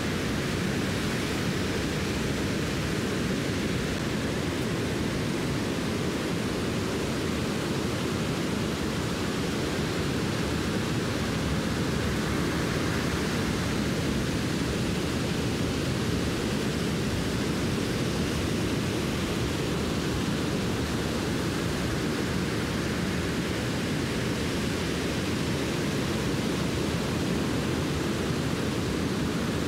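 Surf breaking on a sandy beach: a steady, even rush of waves with no single crash standing out.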